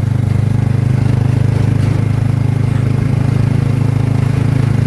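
Motorcycle engine of a tricycle (motorbike with a passenger sidecar) running steadily under way, loud and close, heard from inside the sidecar.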